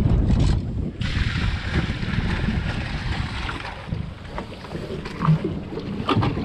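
Wind buffeting the microphone on a small fishing boat, with a low rumble of water against the hull. A hiss starts suddenly about a second in and fades out about three seconds later, and a few sharp knocks come near the end.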